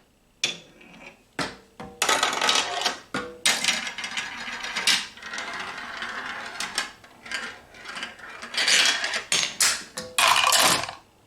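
Glass marbles rolling and clattering down a wooden marble run: many sharp clicks and knocks as they drop from track to track, with stretches of continuous rattling roll in between.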